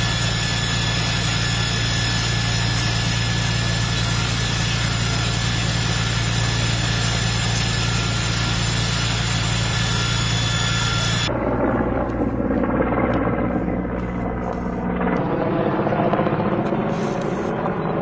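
Steady engine drone with a low hum and several high, whining tones. A little past halfway it cuts abruptly to a different engine drone with a denser, layered pitch, which shifts again near the end.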